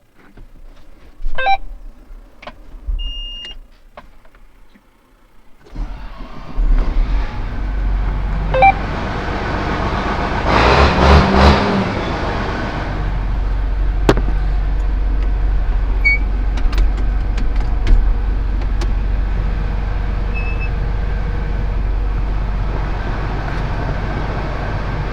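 A few clicks and a short beep, then a heavy diesel farm-machine engine starts about six seconds in. It swells for a couple of seconds and then runs steadily.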